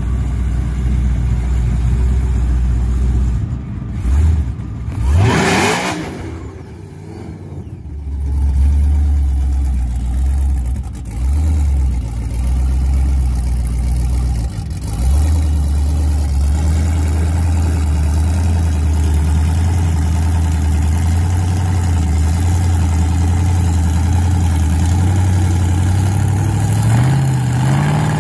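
Cadillac CTS-V drag car's V8 idling at the starting line, with one quick rev about five seconds in. It runs unevenly for a while, then settles into a steady idle that rises a little in rpm near the end.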